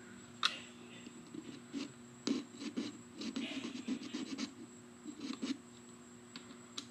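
Scraping, rubbing and small clicks of parts being handled and pried apart during a speaker teardown, with a sharp click about half a second in.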